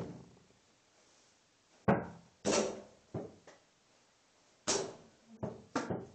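Mini basketball bouncing and striking a small wall-mounted hoop's backboard and rim: about eight sharp knocks with short ringing tails, the loudest about two seconds in.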